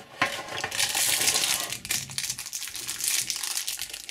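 Clear plastic wrapper of a sealed trading-card packet crinkling as it is handled, after a sharp click just after the start.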